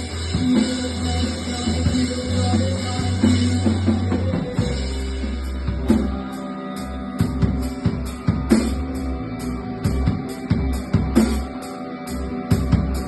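A rock band playing live without vocals: drum kit, guitar and bass. About halfway through, a steady high cymbal beat comes in, two to three strikes a second.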